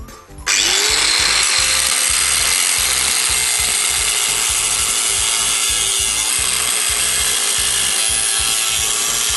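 Angle grinder with a cutting disc cutting through an earthenware (clay) drainage pipe, trimming its broken edges. It starts about half a second in, its motor tone rising as it spins up, then runs steadily under load.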